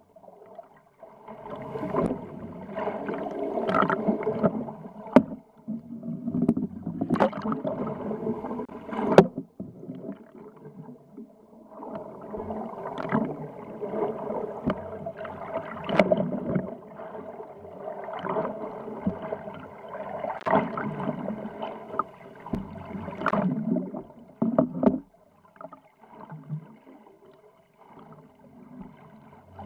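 Muffled underwater noise picked up by a camera in its housing below a boat: water surging and rushing over the housing in swells, with a steady hum and sharp knocks and clicks scattered through.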